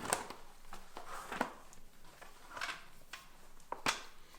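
Bicycle inner tube being pulled out from between the tire and the rim by hand: soft rubber rubbing and rustling with a few light clicks and knocks scattered through.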